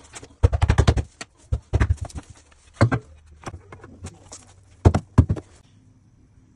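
Oak parquet planks knocking and thumping as they are fitted and pressed down by hand into place. The sharp wooden knocks come in irregular clusters and stop about a second before the end.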